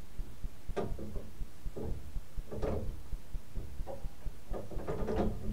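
Metal parts of an 1885 tower clock movement being handled and set: a few irregular knocks and clicks as a part is moved from partially to fully engaged, over a low steady rumble.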